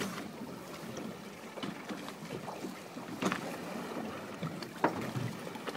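Choppy sea water slapping against a small boat's hull, with wind on the microphone and two louder slaps about three and five seconds in.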